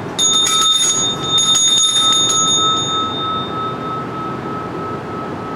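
Altar (sanctus) bell rung at the consecration of the bread, right after the words of institution. It is a bright bell, jangled with quick strikes for about two and a half seconds. Its higher notes then die away while one lower note keeps ringing.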